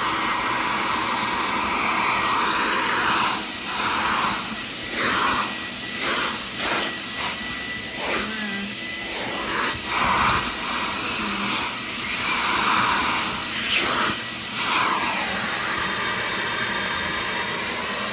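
Sirena water-filter vacuum cleaner running, its noise swelling and dipping as the nozzle is moved along surfaces, with a few brief knocks.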